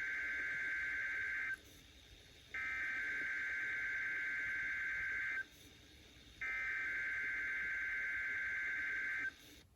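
NOAA Weather Radio SAME header: three bursts of high, buzzing digital data tones, each about three seconds long with about a second's gap between them, played over a weather radio. They open the required weekly test of the warning alarm system.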